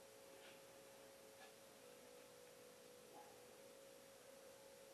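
Near silence: room tone with a faint steady tone and a few soft handling noises.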